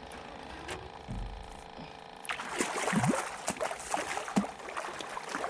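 Hooked channel catfish thrashing and splashing at the water's surface, breaking out loudly about two seconds in as it is brought close.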